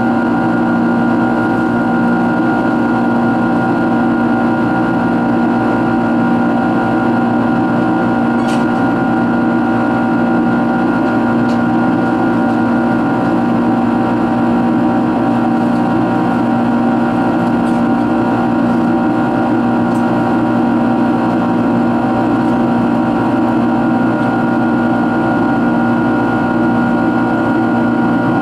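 The Rolls-Royce RB211 turbofan engines of a Boeing 767-336ER in flight, heard from inside the cabin as a loud, steady drone with several steady hums in it. A few faint ticks come through here and there.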